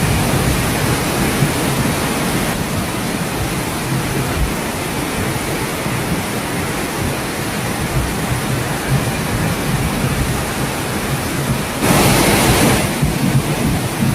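Steady rushing noise of turbulent floodwater, with a louder, brighter surge lasting about a second near the end.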